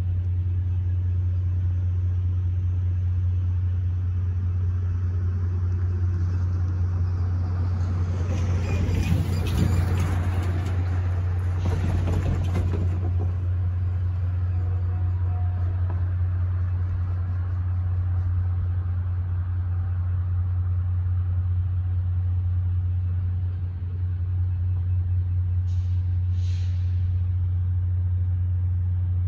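Cars driving over the railroad crossing, one passing close with a swell of tyre and engine noise about a third of the way in, over a steady low hum. A short hiss sounds near the end.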